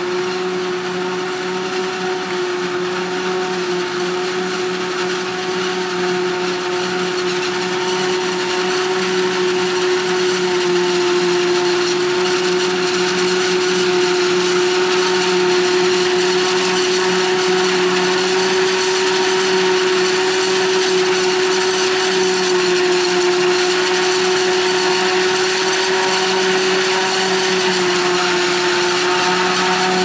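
Claas Jaguar 840 forage harvester chopping maize, with the steady high whine of its cutterhead and blower over the hum of engines, including the John Deere tractor running alongside. It grows a little louder over the first ten seconds or so.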